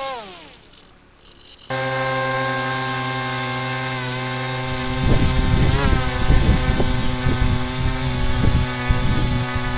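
Small electric motor of an RC boat whining down and stopping. About a second and a half later it starts again abruptly at a steady pitch, dipping briefly twice. From about halfway through it is joined by an irregular low rumbling.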